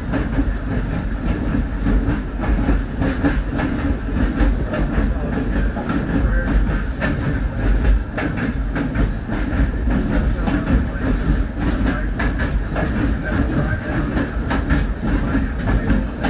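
A caboose rolling along the track, heard from inside its cupola: a steady rumble of the moving car, with the wheels clicking over rail joints now and then.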